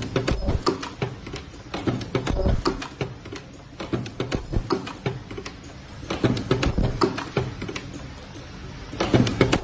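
Semi-automatic mask ear-loop spot-welding machine and neighbouring mask machinery clattering: rapid, irregular mechanical clicks and knocks, busier every few seconds with short lulls between.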